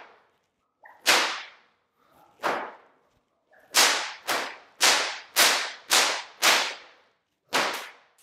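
A whip cracking repeatedly in a helicopter multi-crack pattern: two cracks about a second and a half apart, then a quick run of six at about two a second, then a close double crack near the end. Each crack is sharp and loud.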